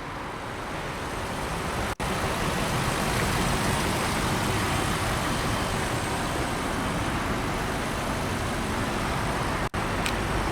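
2002 Lexus LS430's 4.3-litre V8 idling steadily under a broad, even hiss, cut off briefly twice.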